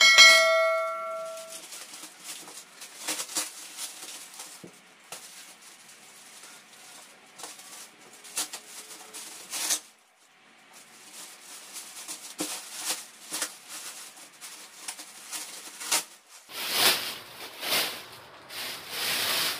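A short bell-like chime at the start, then scissors snipping and clear packing tape being cut and peeled off a plastic-wrapped box, with scattered crackles and scrapes. Near the end comes louder crinkly rustling as the plastic bag is pulled off the box.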